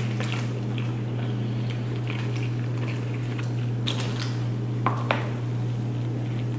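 A man chewing a chicken teriyaki sub on a soft roll and biting into it again about four seconds in, with a few small mouth clicks about five seconds in. A steady low hum runs underneath.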